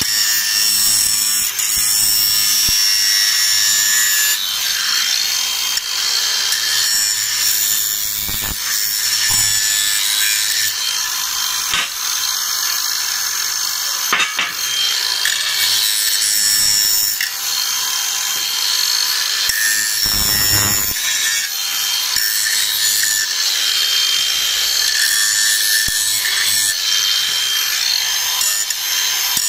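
Makita DGA504Z cordless angle grinder with a Makita grinding disc, grinding the cut edge of a steel strip. It makes a steady, gritty, high grinding noise over the motor's whine, with light pressure on the disc.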